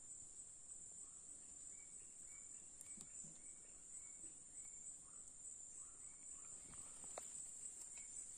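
Faint, steady, high-pitched insect chorus in tropical forest, with a few faint short chirps and light clicks.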